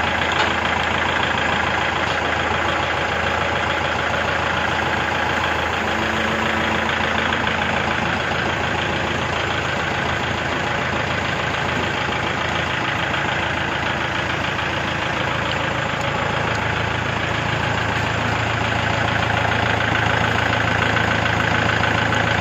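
Kubota L4508DI tractor's direct-injection diesel engine idling steadily with the hood open, a little louder in the last few seconds.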